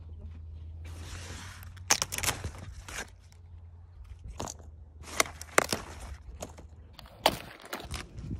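Several sharp, short crunches and scrapes at irregular intervals over a low steady rumble of wind on the microphone.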